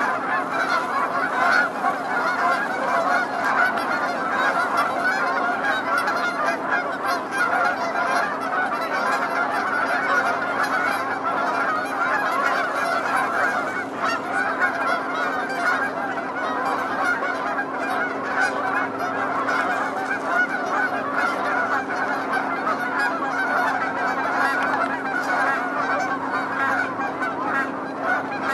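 A large flock of Canada geese honking, many calls overlapping in a dense, unbroken chorus.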